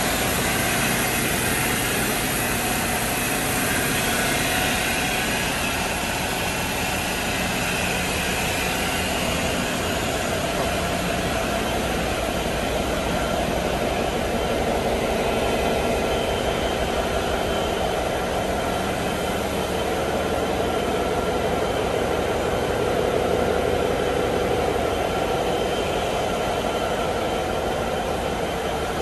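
Marine diesel generator set and engine-room machinery running steadily in a yacht's engine room, a constant dense drone with no changes.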